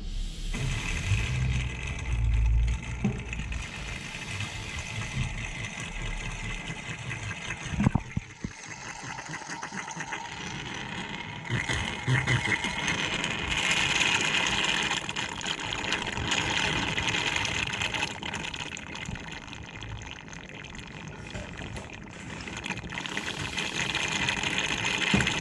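Old brake fluid being sucked out of a car's brake master cylinder reservoir through a thin plastic tube, giving a continuous liquid slurping and gurgling.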